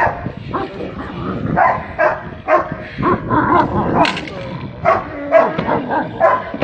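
A large dog barking in short, sharp barks that come in quick, uneven succession, about two a second.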